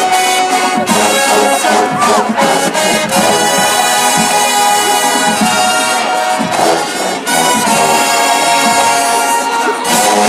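Marching band brass section playing loud sustained chords, with a short break about six and a half seconds in before another long held chord.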